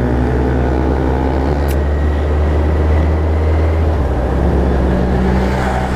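Suzuki Hayabusa's inline-four running steadily under way through shortened Coyote RS trioval exhaust cans with no dB-killer insert fitted. The engine note changes about four seconds in.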